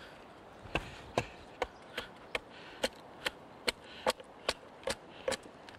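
Axe chopping into a cedar paddle blank, hewing it to shape: a run of quick, evenly spaced strikes, about two and a half a second, starting under a second in.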